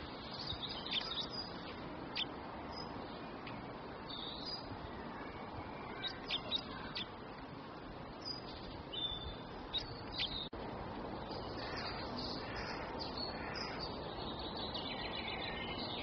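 Small songbirds chirping: short, high calls scattered throughout, over a steady background hiss, with a brief dropout about ten and a half seconds in.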